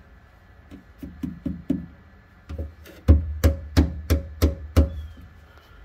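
Knuckles knocking on the underside of a 1957 BMW Isetta's steel body, about three knocks a second. First comes a run of quieter, dull knocks over a patch thick with Bondo body filler. From about two and a half seconds in, a run of louder knocks rings on bare metal. The two sound very different.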